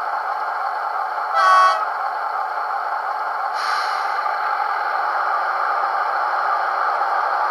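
ST43 diesel locomotive sounds from a model's sound decoder through its small speaker: the engine running steadily, thin and without bass, with one short horn toot about a second and a half in and a hiss joining the engine sound a little after three seconds.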